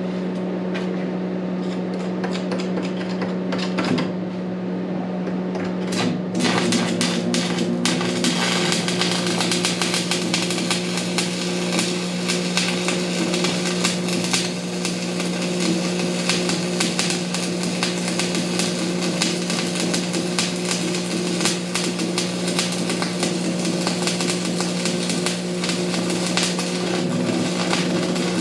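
Arc welding on the steel hitch: a steady welder hum, a few short sputtering starts, then a continuous crackling arc from about six seconds in until near the end as a bead is laid.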